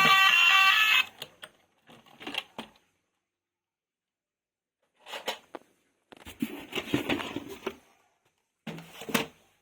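Plastic toys being handled: four brief bursts of rattling and clattering with pauses between them. A short electronic melody cuts off about a second in.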